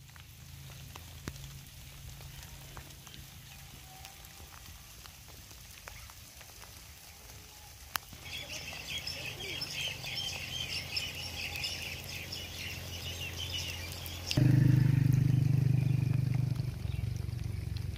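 Outdoor ambience with a busy chorus of birds chirping from about halfway through. Near the end a loud, steady low hum cuts in suddenly and drowns it out.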